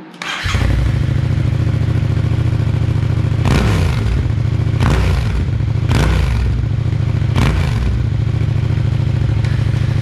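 Yamaha MT-07's 689 cc parallel-twin starting on the button through a Shark DSX-10 full exhaust system with its dB-killer removed. It catches about half a second in, idles, and is given four short throttle blips, each rising and falling back to idle.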